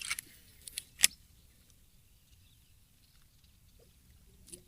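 A few sharp clicks and knocks against a quiet background, the loudest about a second in and another near the end.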